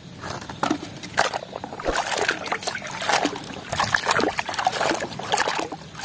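Muddy water sloshing and splashing irregularly in a tub as a plastic toy mask is swished and scrubbed by hand.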